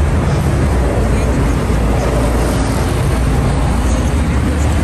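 City road traffic: cars and a bus driving past, a steady low rumble.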